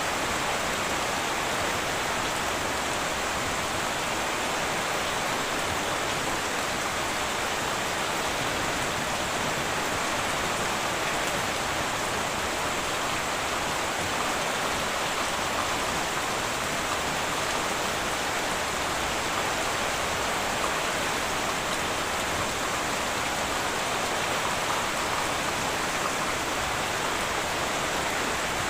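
Heavy rain falling steadily on a tin roof, an even hiss that holds unchanged.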